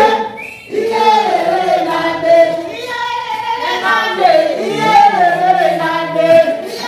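A group of people singing together, several voices holding long, wavering notes.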